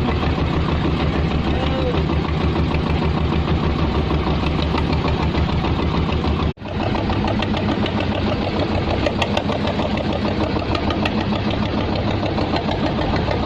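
Fishing boat's engine running steadily at low revs, with a brief cut about halfway through.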